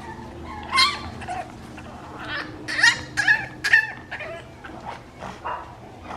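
French Bulldog puppy whining and yipping for attention: a series of short, high-pitched cries, most of them bunched together around the middle.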